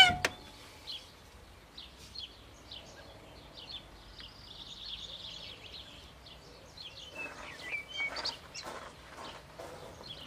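Small birds chirping and singing, with a short, loud falling squeal at the very start and a few faint knocks about seven to nine seconds in. The outboard is not running.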